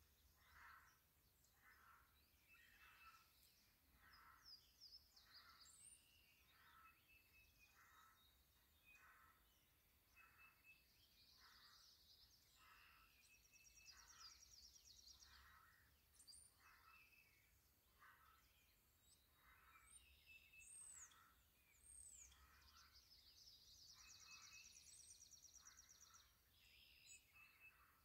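Faint birdsong: scattered high chirps and two rapid trills, over a soft lower note that pulses steadily about one and a half times a second.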